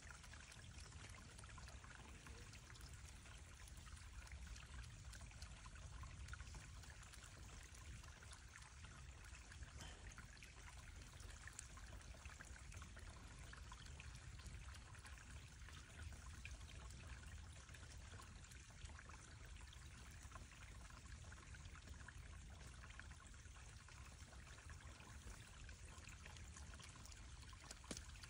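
Faint, steady trickle of water at a small woodland pool or stream, with a low rumble underneath.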